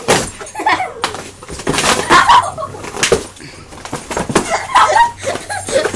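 A dog biting and tearing at a cardboard box: repeated ripping, crumpling and scraping of cardboard.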